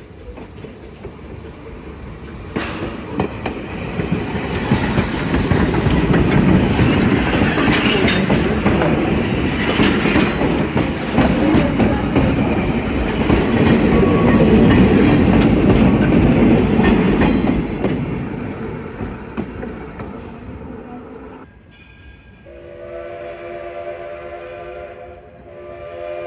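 A steam-hauled passenger train passing close by at track level: it builds up as it approaches, then the coaches' wheels rumble and clack over the rails, loudest in the middle, before fading away. Near the end the Edison steam locomotive's whistle blows twice, the second blast running on.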